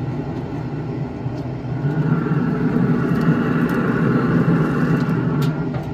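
Steady mechanical hum and rushing air of a pellet smoker's fan, which keeps running after the smoker is switched off, growing louder about two seconds in. A few light clicks come near the end.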